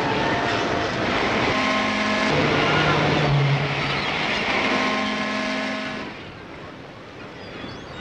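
Ship steam whistles on an old film soundtrack, from the RMS Queen Mary and the tugs around her. Whistles of different pitch sound in turn, a higher one, then a deeper one, then the higher one again, over film hiss. The sound fades after about six seconds.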